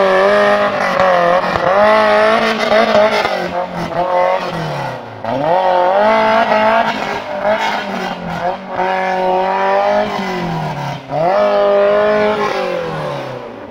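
Modified Maruti Gypsy 4x4's engine revving hard in repeated surges, rising and falling in pitch about every three seconds, as its wheels spin in deep mud while it climbs out of a muddy stream.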